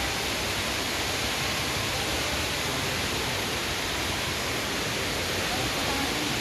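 A steady, even rushing noise like falling water, holding the same level throughout with no distinct events.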